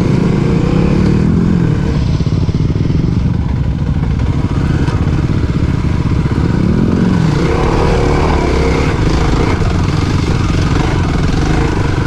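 Motorcycle engine running under varying throttle while riding off-road, revving up and back down about a second in and again around seven seconds.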